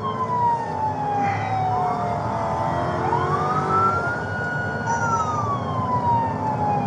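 Police car wail siren, heard from inside the patrol car's cab. Its pitch slides slowly down, sweeps back up about three seconds in, then falls again, with the car's engine and road noise running steadily underneath.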